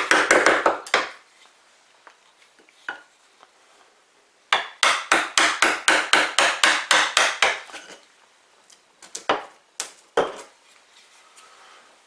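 Hammer tapping a wood chisel to pare epoxy-set toothpick and dowel plugs flush with a door's hinge mortise, in quick sharp taps of metal on metal. A short run of taps opens, then after a pause comes a longer run of about a dozen rapid taps, and then a couple of single taps.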